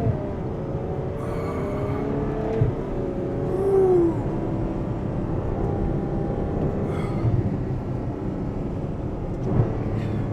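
Ferrari 812 Superfast's 6.5-litre V12 heard from inside the cabin, its engine note dropping in pitch as the car slows, over a steady low rumble of road noise, with a few short knocks.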